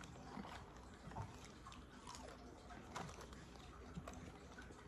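Faint chewing and soft handling of a paper fast-food box, with small scattered clicks.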